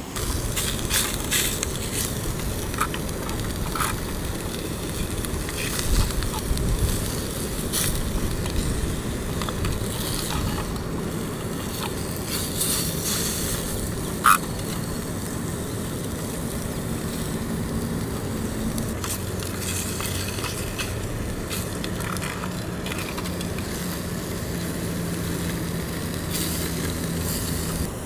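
Freshwater drum fillets sizzling and spattering in a hot skillet, with short crackles over a steady low background rumble. A sharp click about fourteen seconds in.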